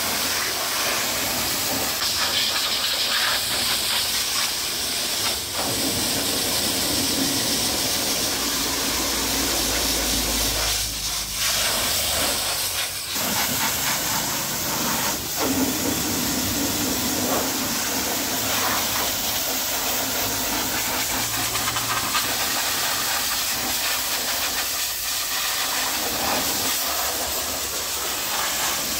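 High-pressure washer jet spraying against a car's tyre and mud-caked wheel arch, a steady loud hiss as it blasts off dried mud, dipping briefly twice near the middle.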